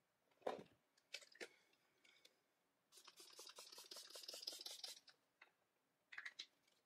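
Faint hand-handling sounds of small objects at a table: a soft knock about half a second in, a few light clicks, then about two seconds of rapid, fine crackling ticks starting about three seconds in, and a short cluster of clicks near the end.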